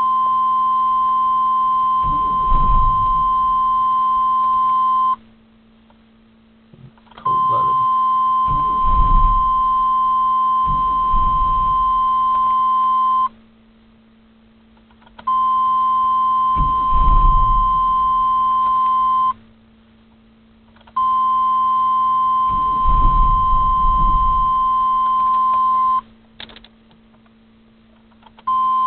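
A 1995 Chevy Blazer with the 4.3 L V6 being cranked again and again in the cold without starting: a steady high warning beep sounds each time the key is turned on, five times in all, and under it come short low bursts of the starter cranking the engine over. The owner puts the hard cold starting down to an exhaust leak before the catalytic converter.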